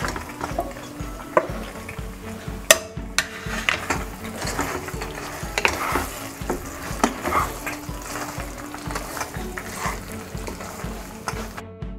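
Wooden spatula stirring and scraping pasta shells through thick white sauce in a nonstick frying pan, the sauce sizzling over the lit burner, with scattered knocks of the spatula against the pan. Background music with a steady beat runs underneath.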